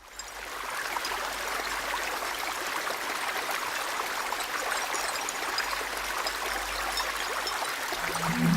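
A stream running steadily, fading in at the start. Low, held music notes come in just before the end.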